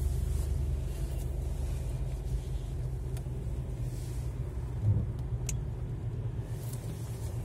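Car driving in traffic, heard from inside the cabin: a steady low rumble of engine and road noise, with one brief low thump about five seconds in.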